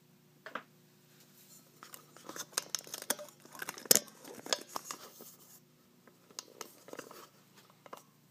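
Handling noise: light clicks and rustles of hands moving small metal lock parts and the camera, thickest in the middle, with one sharper click about four seconds in.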